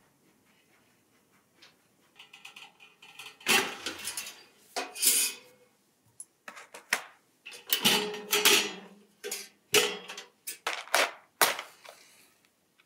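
Metal and glass clinks and clatters as a round-wick kerosene heater is opened up, its chimney and burner parts lifted and handled, followed near the end by a match being struck to light the wick.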